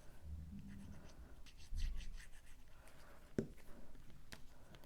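Faint handling of small cardstock pieces on a table: paper rustling and scraping with light taps, and two sharper ticks in the second half.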